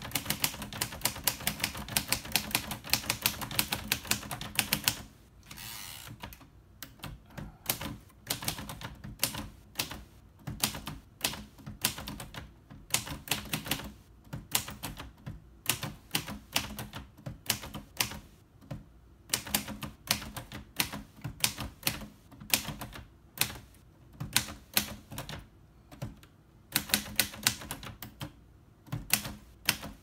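A 1947 Royal Quiet De Luxe manual typewriter being typed on: rapid runs of keystrokes broken by short pauses, with a fast run near the end. Each key lands with a soft thud on the platen, which the owner thinks may have been replaced. There is a brief sliding sound about five seconds in.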